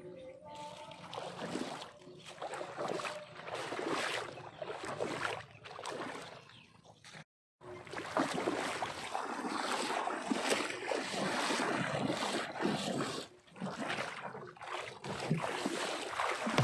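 Water sloshing and splashing in uneven swells. The sound cuts out completely for a moment about seven seconds in.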